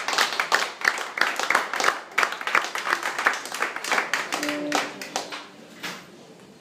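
Small audience clapping after a live band's song, with many separate hand claps that thin out and fade near the end. A brief steady low tone sounds about four and a half seconds in.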